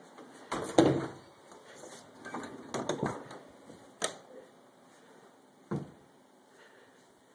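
Wooden doors being opened and shut: a string of knocks and bumps, loudest about a second in, a cluster around three seconds, a sharp click about four seconds in, and a last bump near six seconds.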